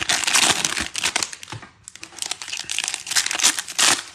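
Plastic wrapper of a Panini Prizm basketball cello pack crinkling as it is torn open by hand, in two spells of rapid crackling with a short lull about halfway.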